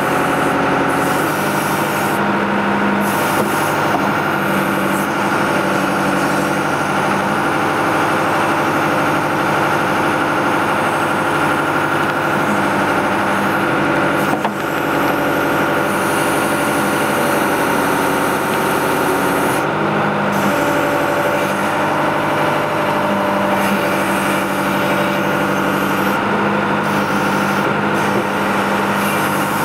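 John Deere 310D backhoe's diesel engine running steadily while the backhoe digs, its note shifting as the hydraulics load it about a second in and again about twenty seconds in. A brief click near the middle.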